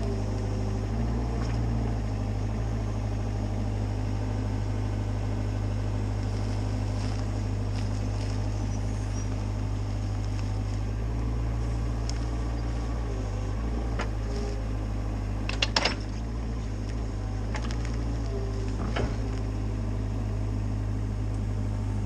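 Cat 304 CR mini excavator's diesel engine running steadily under a low drone, with a few sharp knocks, the loudest about two-thirds of the way through.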